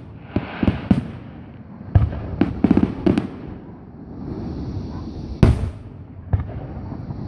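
Aerial firework shells bursting in a display: about ten sharp booms and pops, a quick cluster two to three seconds in and the loudest bang about five and a half seconds in.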